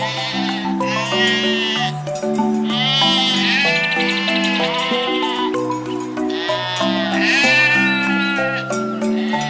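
Sheep bleating repeatedly, about six calls of around a second each, one longer and quavering near the middle, over background music with a steady run of low notes.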